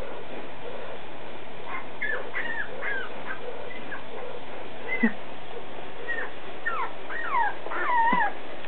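Week-old Alaskan Malamute puppies whimpering in short, high squeaks that bend up and down, more often and a little louder near the end.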